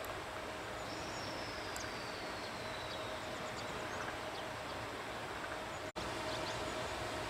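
JR E493 series train rolling slowly toward a station stop, a steady running noise with a steady hum, and birds chirping. A thin high whistle falls slowly in pitch about a second in, and the sound drops out for an instant near the end.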